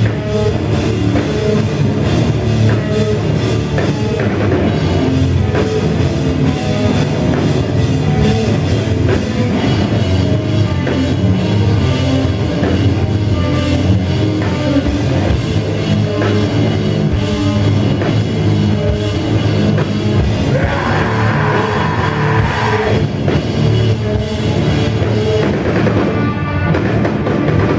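A live heavy metal band playing loudly, heard from the crowd: distorted electric guitars, bass guitar and a drum kit in a steady, dense wall of sound. A brighter held guitar note rises out of the mix about three quarters of the way through.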